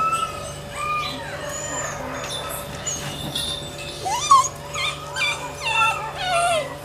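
Several dogs whining and yipping at once, many wavering high calls overlapping. The calls grow busier and louder about four seconds in.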